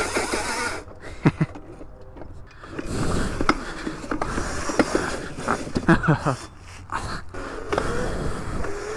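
Small electric dirt bike ridden over rough ground on a hill climb: repeated sharp knocks and rattles from the bike over tyre and ground noise, with a whine rising near the end.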